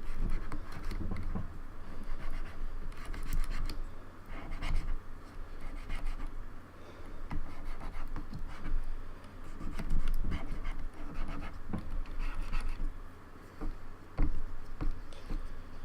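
Cotton swab wet with isopropyl alcohol scrubbing around the keys of a Logitech K360 keyboard to free sticky keys: irregular scratchy rubbing broken by scattered sharp clicks.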